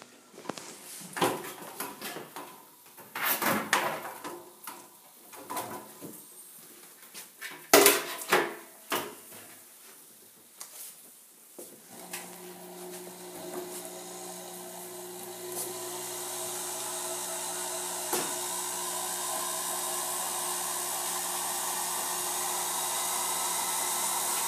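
A series of knocks and clatters for about the first half, then an electric honey extractor starts up and spins its frames of honeycomb: a steady motor hum that slowly grows louder.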